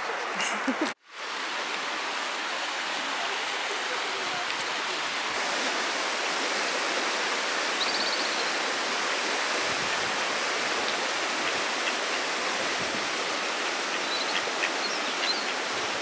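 Steady rushing of a flowing river, with a brief break about a second in.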